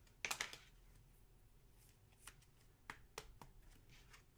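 Trading cards being handled and flipped through: a quick flurry of card-on-card flicks and rustles near the start, then a few single soft clicks spread through the rest.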